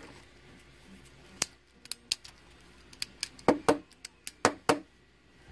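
A flashlight's push-button switch being clicked over and over, about a dozen quick sharp clicks in irregular succession, as the light fails to come on.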